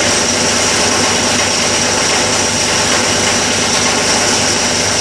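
Plastic grinder-crusher machine running steadily, a continuous mechanical drone with a high whine over it.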